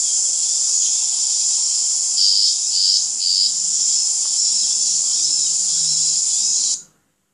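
Steady high-pitched chorus of insects, with a few brief louder pulses a couple of seconds in. It cuts off suddenly near the end.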